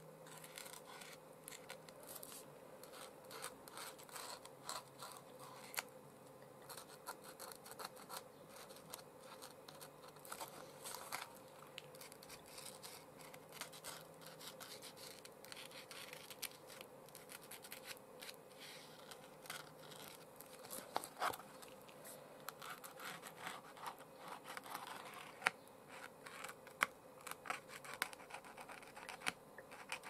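Posca paint marker's nib scratching and tapping along the edge of a paper collage card in many short strokes, a few louder taps near the end. A steady faint hum from an essential oil diffuser runs underneath.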